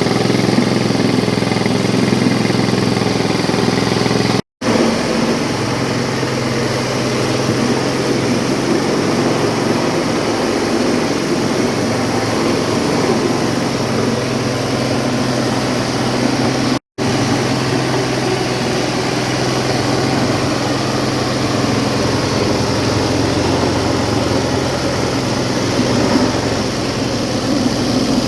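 Cassava grating and pressing machine running steadily: a constant low motor hum under a loud rushing, grinding noise. The sound drops out completely for a split second twice.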